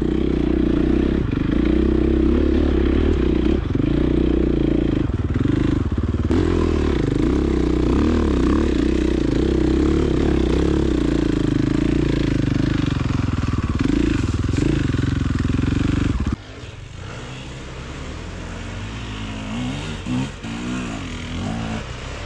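Enduro motorcycle engine running on the trail, its pitch rising and falling with the throttle. About three-quarters of the way through the loud engine sound cuts off suddenly, and a quieter engine sound that still rises and falls carries on.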